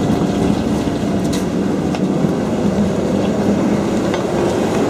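Steady rumble of a vehicle in motion, heard from inside, with a few faint ticks.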